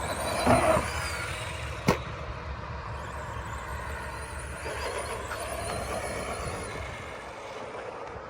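ARRMA Granite Boost RC monster truck running, its brushed 550 electric motor whining and its tyres rumbling over the ground. There is a louder burst under a second in and one sharp knock about two seconds in.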